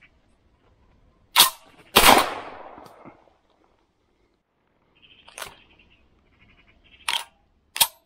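Two shots from a Derya MK-12 semi-automatic 12-gauge shotgun about half a second apart, the second echoing off through the woods. Later come three quieter sharp clacks as the gun is handled.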